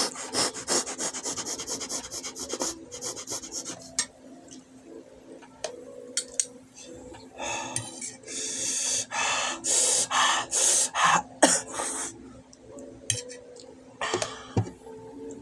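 Close-miked eating sounds of noodles: quick wet chewing and smacking at first, then, from about halfway through, a run of loud breathy slurps about two a second.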